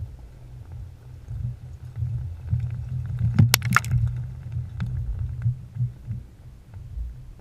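Low rumble of a large explosive demolition charge set off by bomb-disposal technicians, swelling over the first few seconds and then dying away, with a cluster of sharp cracks about three and a half seconds in.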